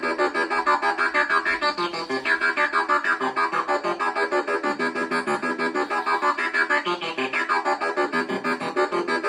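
Behringer MS-1 monophonic analog synthesizer playing a fast repeating sequence of short notes from its built-in step sequencer, roughly eight or nine notes a second. The tone turns brighter and sweeps twice as the sound is adjusted, about two seconds in and again near seven seconds.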